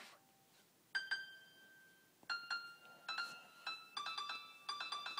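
Piano notes from an iPad piano app, played through the tablet's small speaker as a child taps the on-screen keys. A pair of notes about a second in, then notes and chords come more and more quickly.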